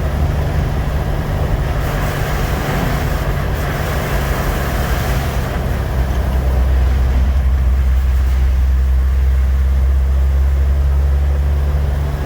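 A 1988 Jeep Wrangler YJ heard from inside while driving: a steady, loud, low engine and drivetrain drone with road and wind noise. There is a stretch of hiss between about two and five seconds in, and the low drone grows louder about six seconds in.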